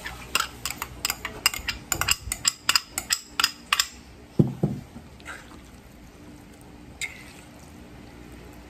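Metal spoon clinking and scraping rapidly against bowls as diced carrots are scraped out for about four seconds, then a dull knock and quieter stirring of the ground pork filling in a stainless steel bowl.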